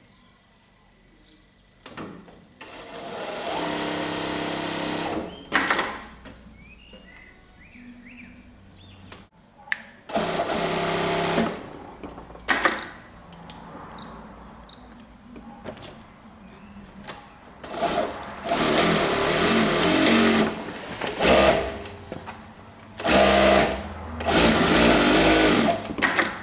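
Brother electric sewing machine stitching in several bursts of a few seconds each, stopping and starting again, with short sharp clicks between the runs.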